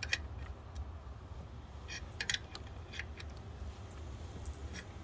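Scattered light metallic clicks and clinks, a cluster of them about two to three seconds in, from an injector puller tool being worked on a tight direct fuel injector in a BMW M5 F10's twin-turbo V8, over a low steady hum.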